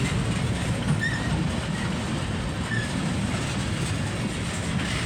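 Freight train cars rolling past on the rails: a steady rumble and clatter of wheels, with a couple of brief, faint wheel squeals.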